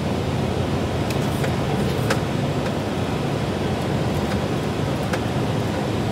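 HGV lorry's engine and tyre noise heard inside the cab while driving at steady speed, with a few faint clicks.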